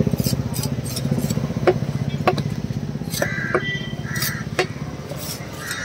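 An engine runs steadily with a low, rapid pulsing. Several sharp clinks and knocks are scattered over it.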